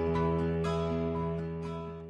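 Gentle instrumental music ending: a held chord with light plucked notes over it, fading away.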